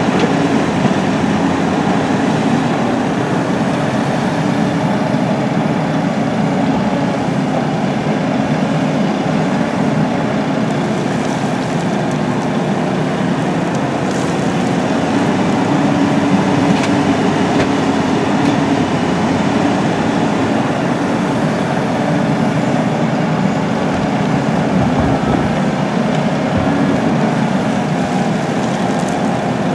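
Caterpillar 320C tracked excavator's diesel engine running steadily under working load as it digs and swings, with soil and rocks now and then dropping from the bucket into the truck's steel dump bed.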